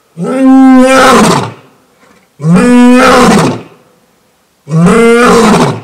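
Male lion roaring: three long roars about two seconds apart, each rising and then falling in pitch.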